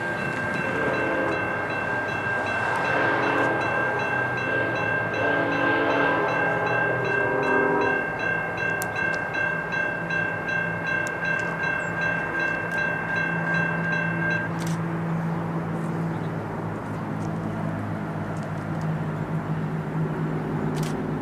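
A distant Nathan K5LLA five-chime air horn on an approaching BNSF SD70-series diesel locomotive blows a grade-crossing sequence of separate blasts through the first several seconds. A crossing's warning bell rings steadily with it and stops a little over halfway through. The low drone of the approaching locomotives builds toward the end.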